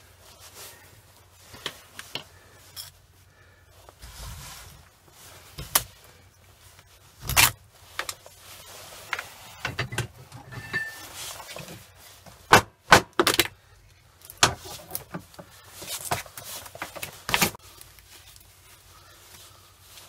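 Copper cable being stripped by hand with a knife: irregular scraping and cutting as the plastic insulation is pared off, with sharp knocks and clinks of the wire and tools against iron blocks. The loudest knocks come just past the middle.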